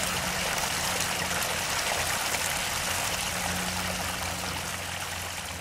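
Small stream of water trickling and splashing steadily over rocks, with a low steady hum underneath. It eases slightly quieter near the end.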